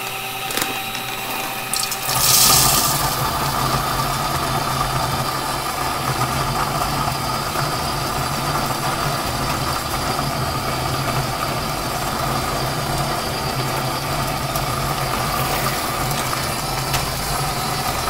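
Breville BCG-6500XL conical burr coffee grinder running. About two seconds in, coffee beans are poured into the hopper with a brief loud rush, and the burrs then grind steadily with an even mechanical hum.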